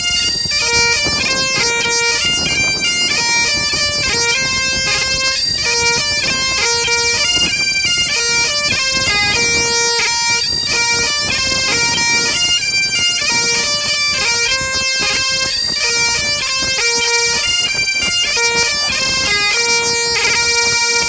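Bagpipe music: a quick melody of rapid note changes, cutting off suddenly at the end.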